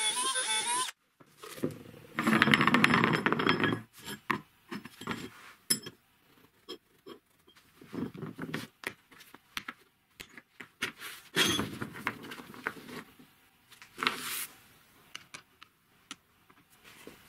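Workshop handling and tool sounds. A power tool running on plastic stops about a second in. It is followed by a loud burst of scraping noise, scattered clicks and knocks of parts being handled, and two more short bursts of noise.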